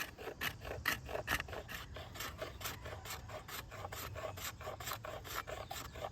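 Mora Companion knife blade scraping dry, dead dogwood into fine tinder scrapings, in a quick, even run of rasping strokes about three or four a second.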